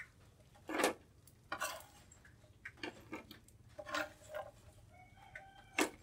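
A metal slotted skimmer clinks and scrapes against a frying pan and a plate in a handful of short, quiet strikes as fried battered breadfruit strips are lifted out and set down.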